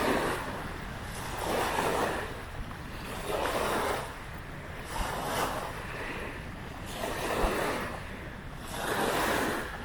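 Small waves washing onto the shore of a shallow saltwater lagoon, coming in even swells about every two seconds, over a steady low rumble of wind.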